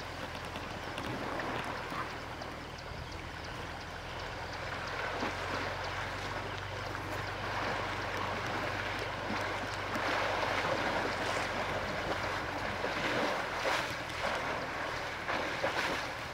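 River water rushing and splashing around an African bush elephant as it wades through the shallows and climbs out, the splashing louder in the second half. A steady low hum runs underneath.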